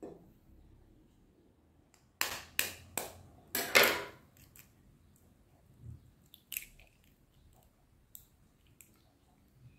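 A raw egg knocked about five times against the rim of a bowl to crack it, each a sharp tap, the last ones the loudest. A couple of seconds later come small clicks of the shell being broken open.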